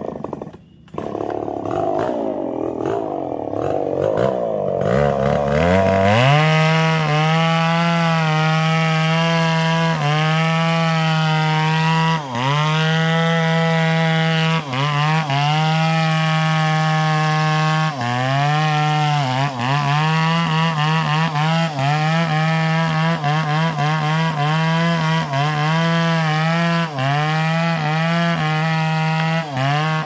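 Chainsaw felling a standing tree. The saw comes up to full throttle about five seconds in and runs steadily through the trunk, with brief dips in speed as the chain bites, then its engine note drops at the very end as the trunk gives way.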